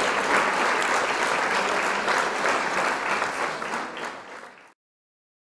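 Crowd applause, dense clapping that fades out and stops about four and a half seconds in, leaving dead silence.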